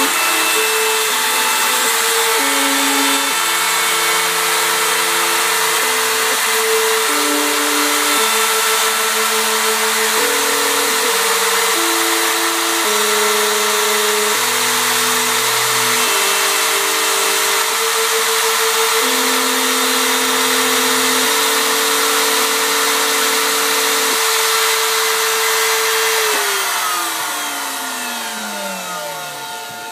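Homemade CNC router milling plywood: the spindle's high whine and hiss over stepper motors singing in tones that jump to a new pitch every second or so as the axes change speed and direction. Near the end the spindle winds down, its pitch sliding steadily lower as it goes quieter.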